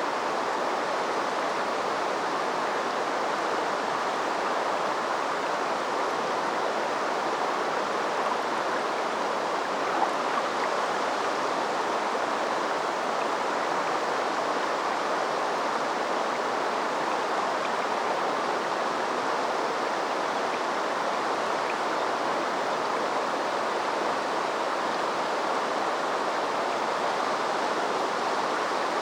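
River water flowing, a steady rush with no breaks. One brief faint tick about ten seconds in.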